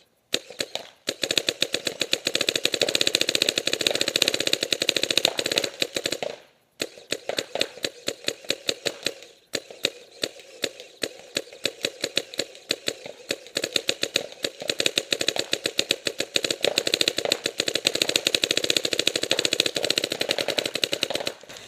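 Dangerous Power DM9 paintball marker firing Reballs into a catcher cage in rapid strings of shots, on semi-auto capped at 20 balls per second. It fires in three long strings, with short breaks about six and a half and nine and a half seconds in.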